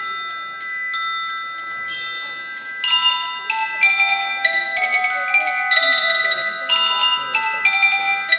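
Percussion ensemble playing a melody on mallet keyboard instruments: struck, bell-like notes that ring on under each other. About three seconds in the notes come faster and louder.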